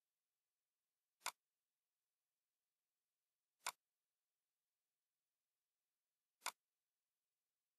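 Three single computer-mouse clicks, short and sharp, about a second, three and a half seconds and six and a half seconds in, with near silence between them.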